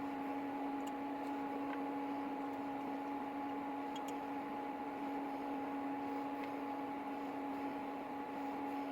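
A steady machine hum holding two even tones, with a few faint ticks over it.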